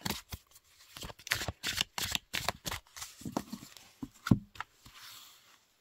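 A deck of oracle cards being shuffled and handled by hand: a quick run of card flicks and snaps for about three seconds, then a few scattered taps, one sharper than the rest a little past four seconds, and a short soft card slide near the end.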